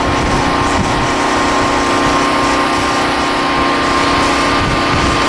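An engine running steadily with a constant hum, over a low, uneven rumble.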